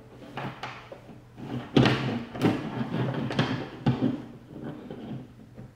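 Irregular clattering, knocking and scraping as the plastic gel blaster and its gearbox motor are handled on a tabletop during unsoldering, loudest in the middle.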